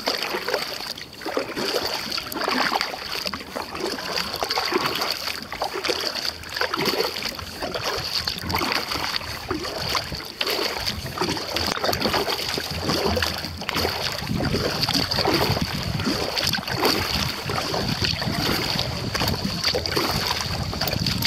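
Water splashing and lapping at a kayak's hull as it is paddled, in irregular strokes, with a steady high-pitched drone underneath. Wind rumbles on the microphone from a little past halfway.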